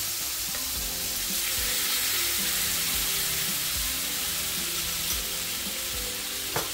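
Slices of Spam frying in olive oil in a pan, coated in a sweet seasoning mix, sizzling steadily. Soft background music runs underneath, and there is a sharp click near the end.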